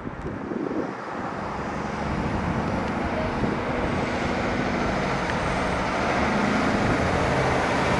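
Steady vehicle rumble with a low engine hum, growing louder throughout.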